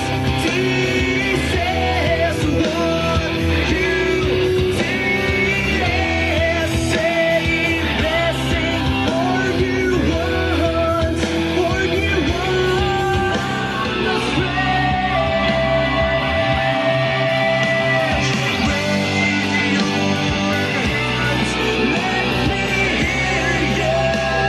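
A rock song playing: a singing voice over guitars and heavy bass, with a long held note about two-thirds of the way through.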